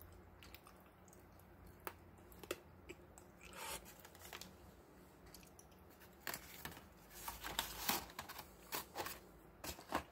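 Packaging handled by hand: a chocolate piece set into its plastic tray, then a ribbed liner sheet and the cardboard box lid, giving scattered clicks, taps and crinkly rustles that grow busier in the second half.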